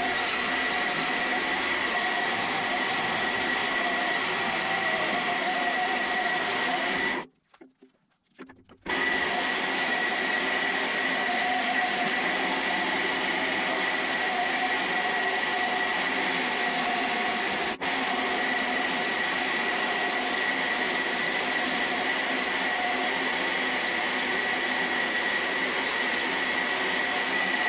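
Wood lathe running with a steady high whine while a gouge shaves the outside of a dry chestnut blank. The sound cuts out for about a second and a half about seven seconds in, then resumes unchanged.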